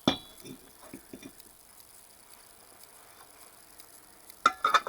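Metal parts of an old electric motor being handled during teardown: a sharp clack at the start, a few light knocks, then a quick cluster of ringing metal clinks near the end.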